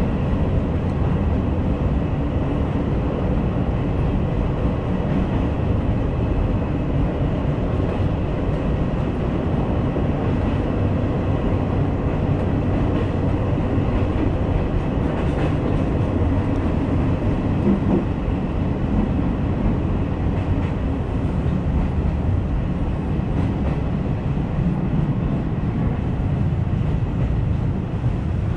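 Izuhakone Railway Daiyuzan Line three-car electric commuter train running along the track, heard from inside the front car: a steady rumble of wheels on rails and running gear.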